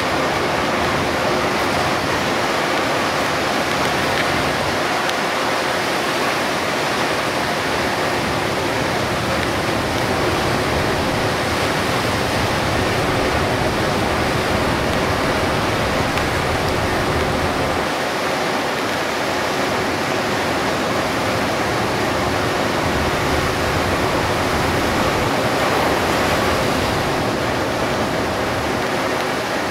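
Heavy downpour heard from inside a moving Hino Selega HD coach: rain on the bus and wet-road spray make a dense, steady rushing hiss with no break.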